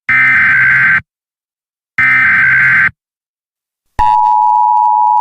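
Emergency Alert System header tones: two one-second bursts of warbling digital data, a second apart, then about 4 s in a steady, loud attention tone starts. This is the alert signal that comes before an emergency message is read.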